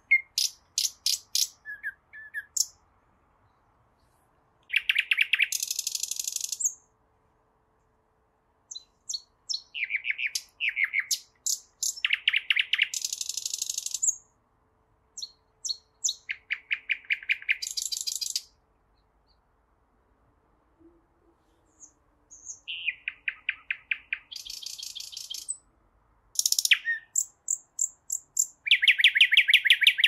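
Nightingale singing: phrases of rapid repeated notes and trills, each a few seconds long, broken by short pauses.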